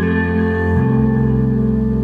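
Background music: a slow ambient instrumental of held chords, moving to a new chord about a second in.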